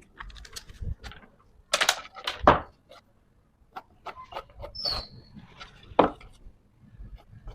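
Scattered knocks and taps of wood on wood, a few louder thunks among lighter clatter, as wooden parts are handled.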